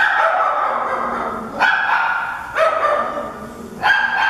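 Dogs barking in a shelter kennel, four loud barks about a second apart, each ringing on in the echo of the concrete-block kennel room.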